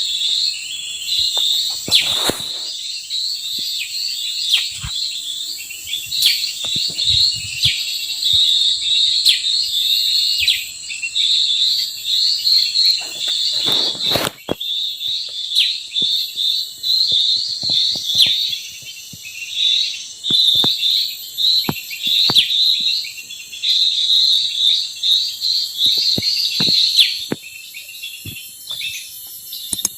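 Small birds chirping in quick repeated phrases over a steady high-pitched insect drone, with scattered faint clicks and two brief rustling bursts, about two seconds in and again near the middle.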